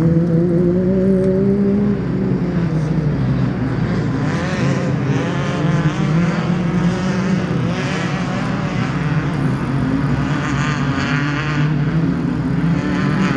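A motor vehicle engine running steadily. Its pitch drops a step about two seconds in and rises and falls a little after that.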